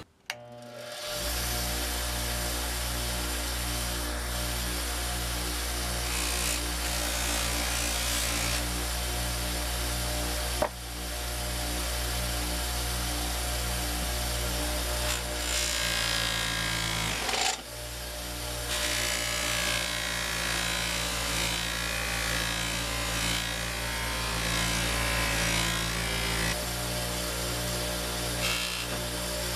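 Motor-driven buffing wheel starting up and running steadily, with a rushing hiss as a steel hatchet head is buffed to a polish against it. The sound dips briefly twice, about ten seconds in and again a few seconds later.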